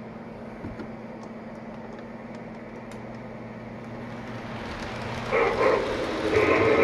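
QSI QS-3000 sound system of an O scale model steam locomotive running as the engine is cranked up: a steady hum with faint chuffs that slowly grows louder. Near the end the locomotive's steam whistle blows loudly, twice, as the whistle sequence that drops the water scoop is keyed in.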